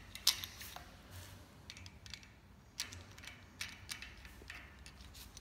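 Scattered small clicks and metal taps as a clamp bracket and a steel rod are worked onto a shopping cart's chrome wire frame. The sharpest click comes just after the start, with a few more around three to four seconds in.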